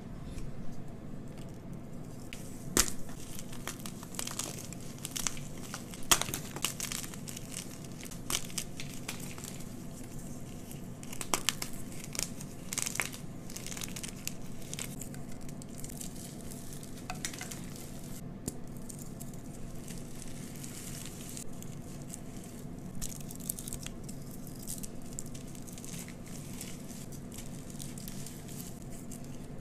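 Blocks of gym chalk crushed and squeezed by hand. Sharp, crisp crunches and cracks come in the first half, then softer crumbling of powdery chalk.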